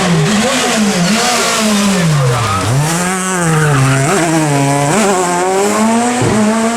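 Super 2000 rally car's naturally aspirated four-cylinder engine at full stage pace, its pitch climbing and falling again and again as the driver shifts gears and lifts off. It drops deeply about two and a half seconds in, then climbs back, with quick sharp dips near the end.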